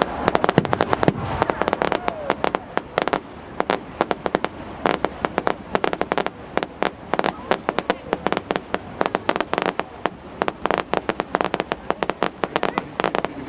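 Fireworks going off: a rapid, irregular run of sharp bangs and crackles, several a second.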